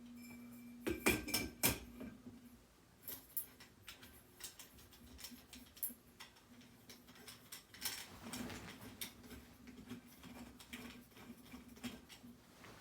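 Harbor Breeze Armitage ceiling fan giving a steady low hum, with a burst of glass clinks and knocks about a second in and scattered light ticks and clinks after, as the glass light globe is handled and fitted to the fan.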